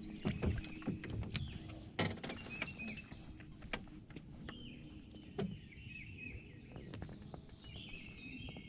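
Wild birds chirping, with a quick run of high chirps about two seconds in, over a few light knocks and clicks from gear being handled in a small boat.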